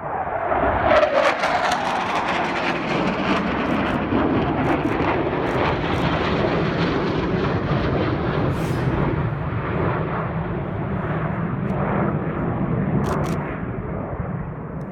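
Panavia Tornado jet with twin RB199 turbofans passing, its pitch falling about a second in, then a long, loud jet rumble that eases off near the end.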